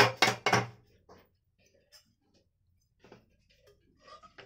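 A few sharp metal clanks of cookware at the start, then quiet, then a metal ladle scraping and stirring cooked dal inside the opened pressure cooker near the end.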